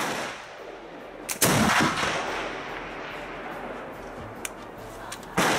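Flintlock Baker rifle firing: a faint click just before a loud report with a long fading echo, and a second loud crack near the end.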